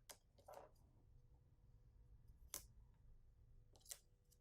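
Near silence: room tone with a low hum and a few faint clicks, about four, from light handling at the worktable.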